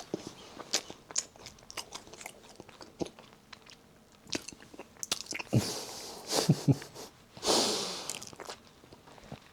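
A person chewing a snack close to the microphone: irregular small crunching clicks and mouth sounds, with a few louder chews in the middle and a longer breathy hiss about three-quarters in.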